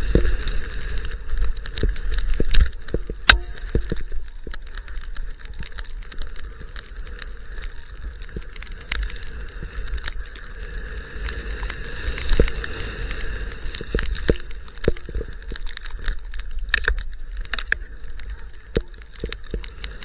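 A skier's run through deep powder: wind rushing and buffeting over the camera microphone, with frequent sharp clicks and knocks from skis, gear and brushed branches, the loudest a few seconds in.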